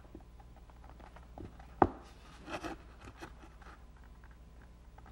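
Mitered pine boards and a bar clamp being handled on a workbench: a small tap, then one sharp wooden knock about two seconds in, followed by a brief rubbing scrape and a few light ticks.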